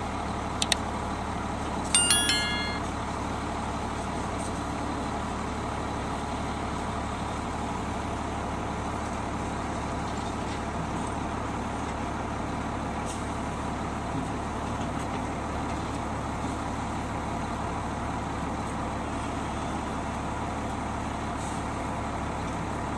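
Volvo EC480 crawler excavator's diesel engine running steadily as it loads a dump truck with rubble. About two seconds in, a few clicks and a short bright chime from the overlaid subscribe-button animation.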